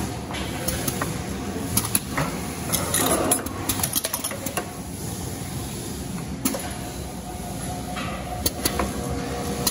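Automated in-line can filler and seamer running a water test: a steady mechanical hum broken by frequent sharp metallic clicks and clinks of the aluminium cans and machine parts, with a short louder rush of sound about three seconds in.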